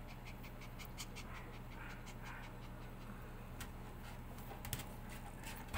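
Maltese puppy panting faintly in short, quick breaths, about four a second at first, then less regular.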